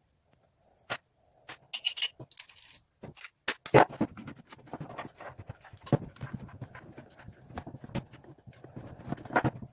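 Hand work on a pine block: scattered knocks and clicks, a short squeak about two seconds in, then busy irregular scraping and knocking from about halfway through.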